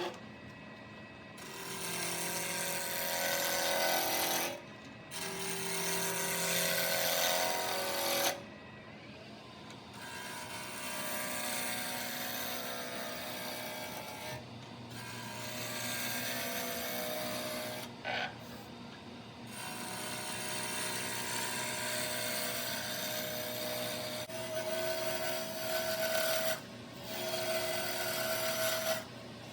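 Wood lathe running while a turning tool cuts into the spinning rough wood stock, scraping and rasping in passes of a few seconds each with brief pauses between them.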